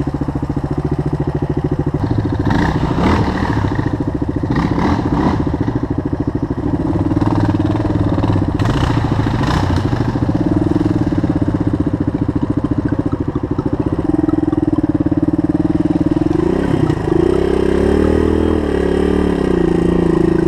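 A Suzuki DR dual-sport motorcycle's single-cylinder four-stroke engine runs close to the microphone, idling steadily. Near the end it revs up and down as the bike pulls away on the muddy trail.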